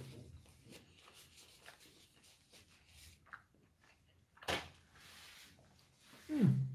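Quiet room with faint scattered handling ticks, one sharp knock about four and a half seconds in, and a short vocal sound falling in pitch near the end.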